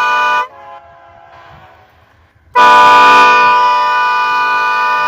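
Sandcast Nathan K3LA-R2 five-chime air horn on a Union Pacific GE C44ACM locomotive, blowing long steady blasts. One blast cuts off about half a second in and fades briefly. After a short lull, another long blast starts about two and a half seconds in.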